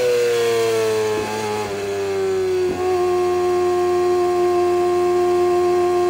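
Kawasaki ZX-25R's 250 cc inline-four engine running through an Orion aftermarket exhaust, giving a high-pitched, buzzing note. The pitch eases down over the first three seconds, with a few brief dips, then holds steady.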